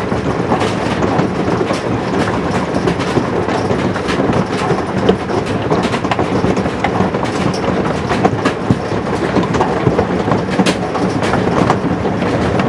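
Intense fall of large hail: a dense, unbroken clatter of countless hailstones striking, with sharper individual cracks standing out all the way through.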